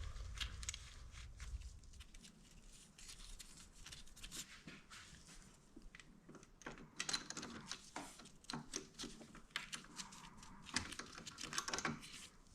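Small engine parts and hand tools clicking and tapping irregularly as they are handled, with a busier run of sharp clicks in the second half.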